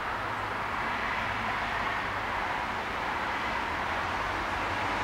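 Steady outdoor street background noise, an even hiss with a faint low hum under it.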